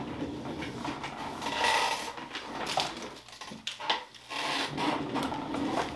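Irregular rubbing and scraping noises, continuing with uneven swells.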